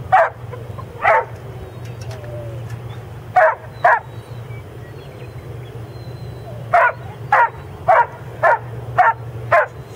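A dog barking: about ten short single barks, two near the start, two more around three and a half seconds in, then a run of six about half a second apart near the end, over a steady low hum.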